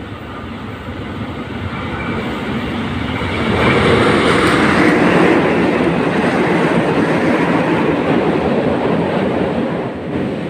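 Diesel locomotive hauling a Kirow railway crane passing close by. It grows louder as it approaches, is loudest from about four seconds in as the locomotive and wagons roll past, and falls away near the end.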